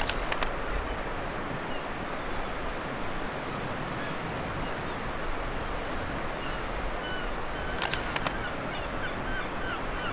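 Baltic Sea surf washing steadily with wind, under faint high chirps, and a few sharp clicks at the very start and again about eight seconds in.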